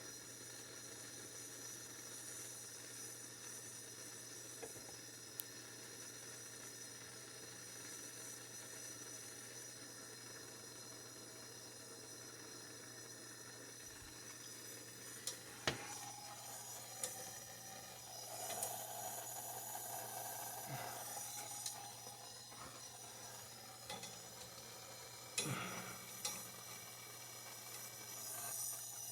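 Steady hiss with sizzling, typical of a propane torch heating a copper pipe joint for soldering. Partway through come a few sharp metallic clicks and knocks.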